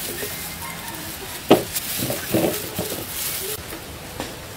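Dragon fruit being handled with plastic-gloved hands over a ceramic plate: rustling and a few knocks, with one sharp loud click about one and a half seconds in, over a faint steady hiss.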